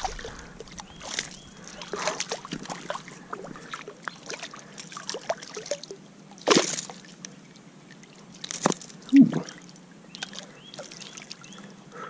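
A small hooked fish splashing and flapping at the water's surface as it is unhooked by hand, with water sloshing. The splashes come irregularly, two of them louder, about halfway through and again about three-quarters of the way through.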